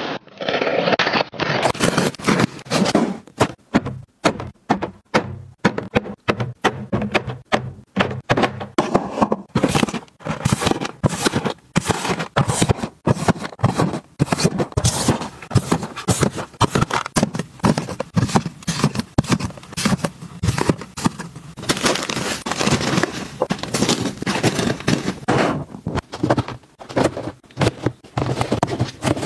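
Packaged goods being handled up close: paperboard boxes and plastic packets unpacked, set down and slid into place in a plastic bin and on shelves. It comes as a dense, irregular run of taps, thunks, scrapes and crinkles.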